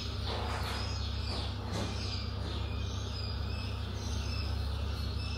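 Steady low background hum with faint, high chirping over it.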